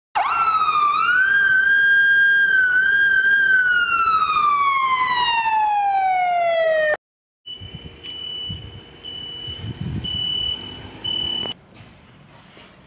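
A siren winding up fast, holding its pitch with a slight wobble, then winding slowly down until it cuts off suddenly about seven seconds in. After a brief gap comes a quieter high steady beeping tone over background noise, which stops shortly before the end.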